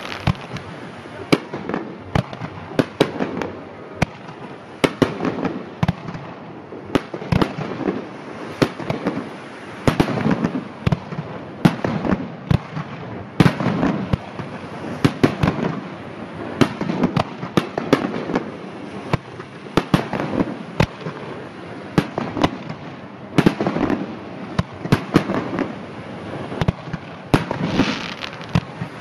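Aerial fireworks shells bursting in steady succession: a dense run of sharp bangs and crackles, with low booms rumbling between them.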